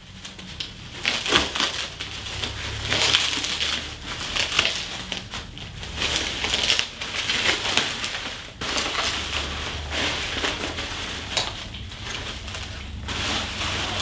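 Plastic bubble wrap crinkling and crackling irregularly as it is pulled off and unwrapped from a bicycle's handlebar.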